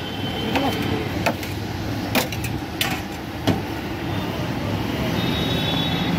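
Street traffic noise, with a few sharp clinks and knocks from steel utensils at a street food stall between about one and three and a half seconds in.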